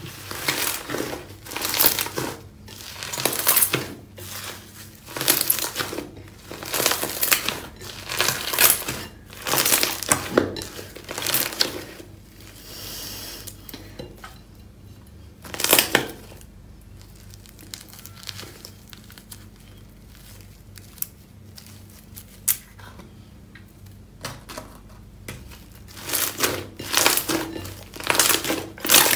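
Soft blue slime being squeezed, stretched and pressed by hand, each squeeze giving a short squishy, crackly burst. They come about one a second at first, thin out to a quieter stretch through the middle, and pick up again near the end.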